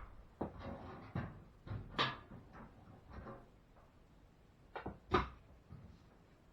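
Irregular knocks, clicks and light clatters as the sheet-metal back cover of a front-loading washer is unscrewed and handled, two of them sharper about 2 and 5 seconds in.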